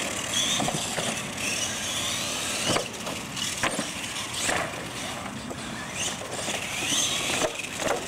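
Electric R/C monster trucks racing on concrete: their motors whine, gliding up and down in pitch as they accelerate and let off, with several sharp clacks as they hit and land off the wooden ramps.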